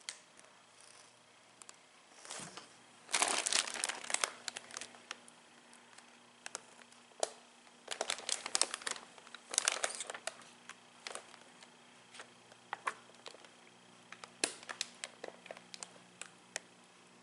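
Plastic bags of LEGO pieces crinkling as they are handled, in three bursts about three, eight and fourteen seconds in, with scattered small clicks in between.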